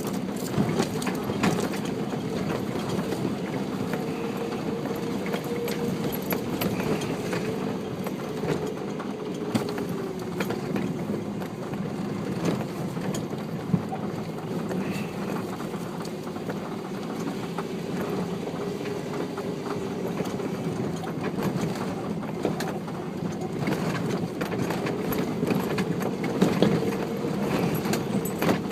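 A four-wheel drive's engine running steadily at low revs, its pitch drifting slowly up and down, with scattered knocks and rattles as it crawls along a rough track.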